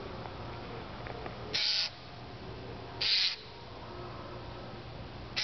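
Eurasian jay giving three short harsh calls from the treetops, the last one right at the end.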